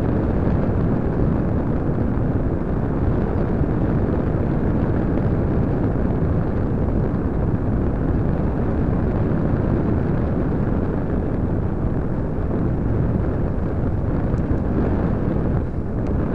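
Airflow rushing over the microphone of a small keychain camera carried on a Parkzone Radian glider in flight: a steady, loud low rumble of wind buffeting.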